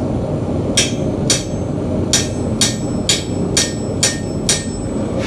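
Hand hammer striking a punch to drive impressions into a hot mild-steel plate on the anvil: eight sharp, ringing metal blows, two about a second in, then after a short pause six more at about two a second. A steady roar of the gas forge runs underneath.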